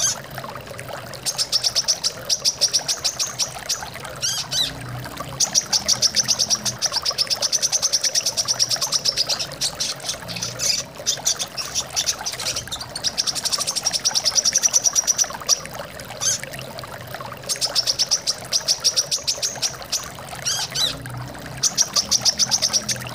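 Brown-throated sunbird (kolibri kelapa) singing in rapid, high-pitched trills that come in bursts of a few seconds each, over the steady sound of flowing water.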